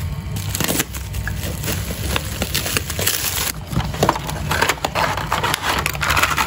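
Clear plastic wrapping crinkling and crackling as a parcel is unwrapped and the packaging of a luggage scale is handled, thickest near the end. A steady low hum runs underneath.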